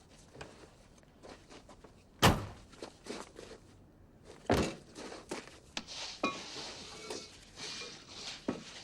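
A series of knocks and thumps: a sharp loud one about two seconds in, another about four and a half seconds in, and lighter knocks and taps scattered between and after.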